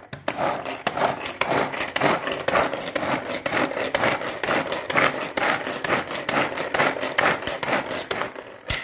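Manual pull-cord vegetable chopper worked in quick repeated pulls, its blades whirring and clattering through onion pieces inside the plastic bowl. A sharp click near the end.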